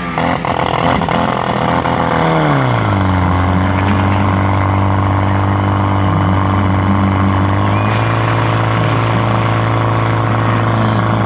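Portable fire pump engine running hard, driving water out through the hoses to the jets. Its speed swings up and down in the first few seconds, then holds steady at a high pitch, stepping up slightly about eight seconds in.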